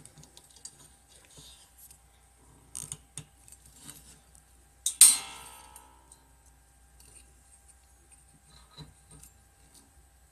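Parts of a microphone boom stand clicking and knocking as they are handled and fitted together, with one sharp, ringing clank about five seconds in.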